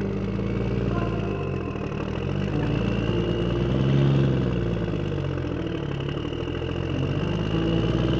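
Motorbike engine running while riding along a street, its pitch rising and falling as the speed changes, with a swell about four seconds in and again near the end, over road and traffic noise.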